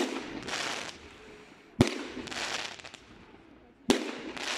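Aerial fireworks going off in sequence: three sharp bangs about two seconds apart, each followed by a brief burst of crackling as the stars break open.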